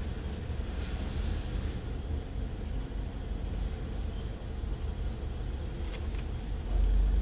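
Steady low rumble of an idling car and automated car wash machinery, heard from inside the car's cabin. It grows louder near the end.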